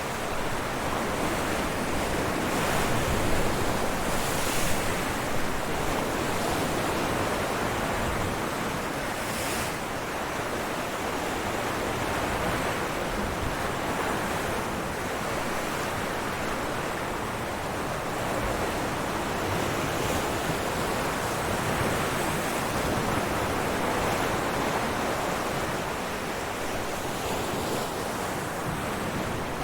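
Ocean waves breaking on rocks: a continuous rush of surf that swells and eases slowly, with two brief sharper hissing surges a few seconds in and again near ten seconds.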